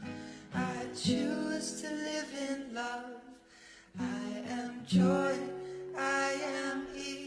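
Gentle song with acoustic guitar and a singing voice.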